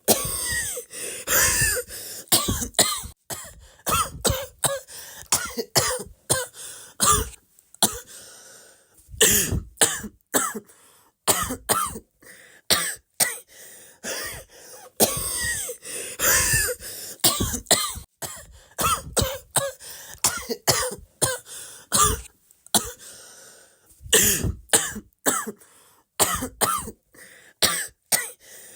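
A long run of coughs and throat-clearing sounds, many short hacks in quick succession with brief pauses between them.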